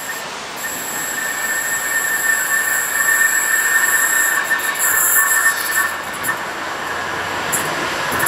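A locomotive-hauled train of old Mk3 coaches approaches, its sound growing louder. Over its rumble runs a steady high-pitched tone from the wheels on the rails.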